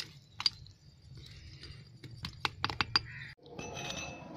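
Sharp, irregular clicks and taps of small hard objects knocking together, bunched in a quick cluster about two to three seconds in. After a brief cut, the clicks give way to a steady low background noise with a faint high tone.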